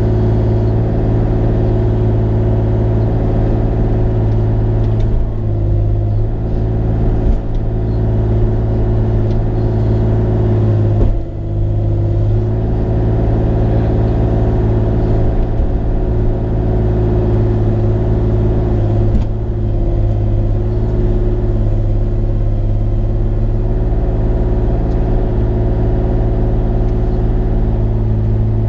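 Bobcat E35i mini excavator's diesel engine running steadily at working throttle, with a few knocks while the machine works. The loudest knock comes about eleven seconds in, with a brief dip in the engine note.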